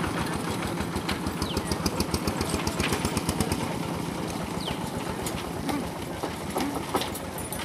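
Small engine of a motorised three-wheeled cart running with a rapid, steady low beat, a little fainter after the first few seconds as the cart moves off.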